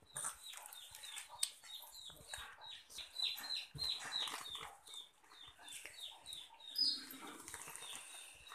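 Bird chirping: a steady run of short, high chirps that fall in pitch, about three a second.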